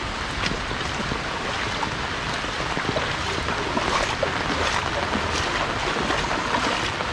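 Steady rain falling on standing floodwater and pattering on an umbrella overhead, a constant hiss with faint scattered drop ticks.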